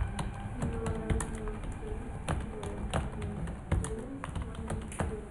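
Computer keyboard typing: irregular key clicks, about three a second, with a low wavering tone coming and going underneath.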